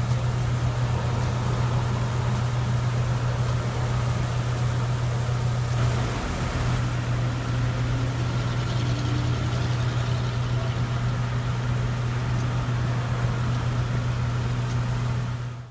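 Engine of a spray-injection pothole-patching machine running steadily with a low hum, a hiss over it that thins out about seven seconds in.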